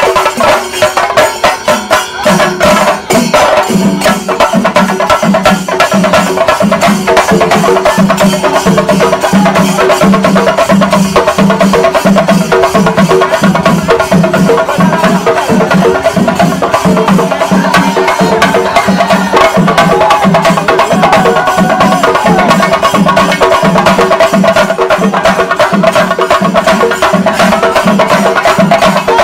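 Percussion-led music: a steady drum beat of about two strokes a second, with held melody tones over it, settling into the beat about two seconds in.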